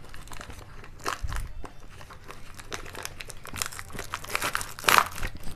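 Kitchen handling noises: crinkling and rustling with scattered small clicks, and a louder knock about five seconds in, as spice containers are handled to add chilli powder to the pickle.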